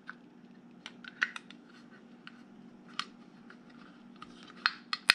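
Scattered light clicks and taps of AR-15 upper and lower receivers being handled and fitted together, with a couple of sharper clicks near the end.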